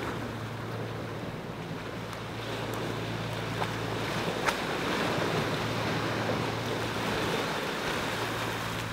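Surf breaking and washing up the beach, building to a louder surge about halfway through and easing off toward the end, over a steady low hum.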